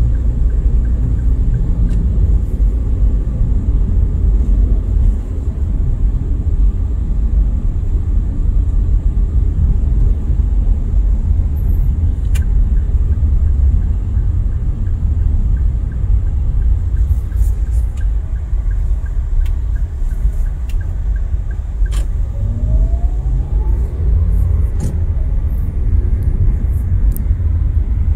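Steady low rumble of a car driving slowly, with engine and road noise heard from inside the cabin. A few sharp clicks come through, and a short rising whine sounds about three-quarters of the way through.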